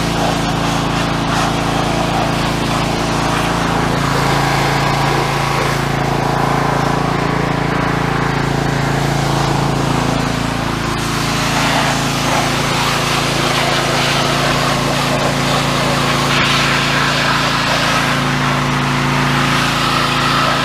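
Gas-engine pressure washer running steadily, with the hiss of its water spray. The engine note shifts slightly a few seconds in and again near the end.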